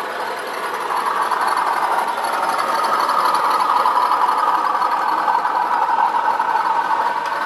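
A model railway train running along the track: a diesel locomotive model hauling Cemflo bulk cement wagons. Its motor and the wheels rolling on the rails make a steady whirring rumble, which grows a little louder over the first couple of seconds as the train comes past.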